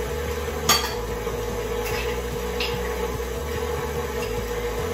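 Tilt-head stand mixer's motor running steadily with a constant whine, and a single sharp tap less than a second in.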